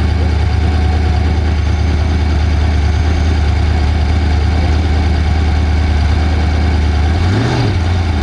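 Off-road race vehicle's engine idling steadily, with one short rev that rises and drops back near the end.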